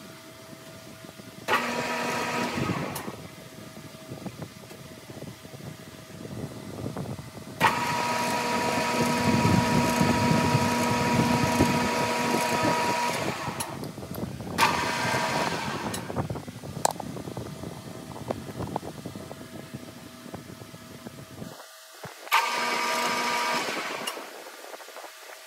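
Metal lathe spindle starting and stopping four times, each run a steady machine whine that begins suddenly. The longest run, about six seconds, comes with the lathe turning an aluminum part.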